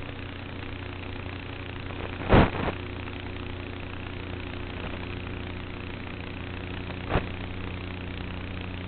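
Electric motor and propeller of an E-flite Apprentice S RC plane running at a steady pitch, heard through the onboard action camera's microphone. Two short thumps break in, a loud one about two seconds in and a smaller one about seven seconds in.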